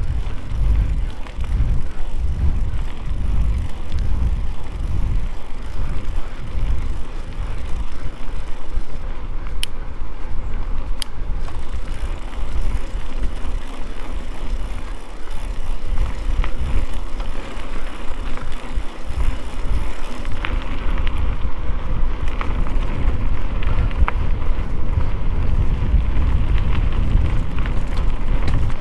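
Mountain bike being ridden along a trail: a steady rumble of tyres on the ground and wind on the microphone, with a couple of sharp clicks about ten seconds in.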